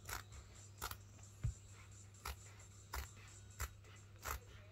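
Large fabric scissors cutting through leather cushion fabric, a steady series of short snips about one every 0.7 seconds.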